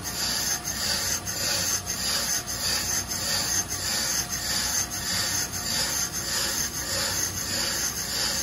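Accu-Turn brake lathe running with a brake rotor spinning on its arbor, its cutting bits zeroed against the rotor faces and scraping lightly across them as the cutting assembly is fed in by hand: a steady rasping over the hum of the lathe.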